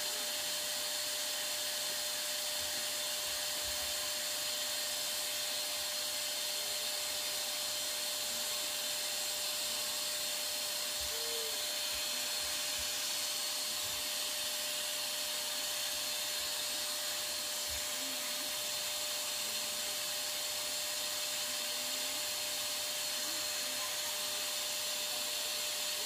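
Maxhealth handheld vacuum cleaner running steadily, its rear exhaust blowing air onto the washed mesh filter to dry it. It makes an even, airy rush with a faint steady hum.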